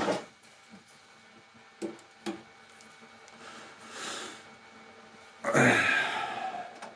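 Small clicks of tool and planer parts being handled while a small planer/thicknesser's blades are set, followed about five and a half seconds in by a louder, brief rushing scrape.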